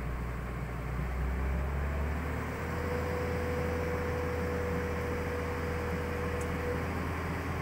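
Tata Hitachi hydraulic excavator's diesel engine running steadily with a low hum. A steady whine joins in about two and a half seconds in and stops near the end.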